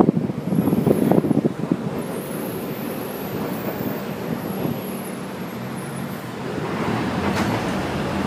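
Motor vehicle and road traffic noise: a steady hum and hiss, with a few irregular thumps in the first second or so and the hiss swelling about seven seconds in.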